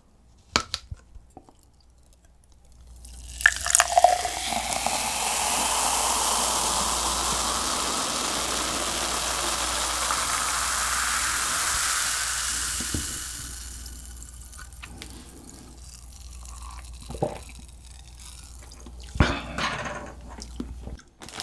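Cola poured from a plastic Pepsi bottle into a glass: the pour starts a few seconds in as a steady fizzing rush for about ten seconds. It then settles into the softer fizz of the full glass.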